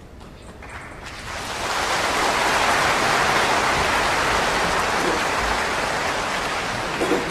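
Audience applauding in a large hall. The applause swells about a second in and holds steady.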